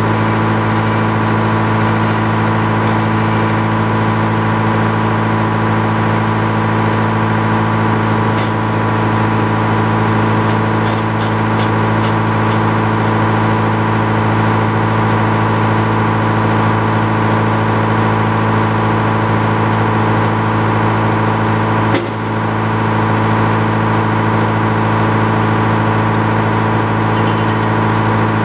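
A motor running at a steady pitch, a constant low hum throughout. A few light clicks come about eight to twelve seconds in, and a single sharp knock about 22 seconds in.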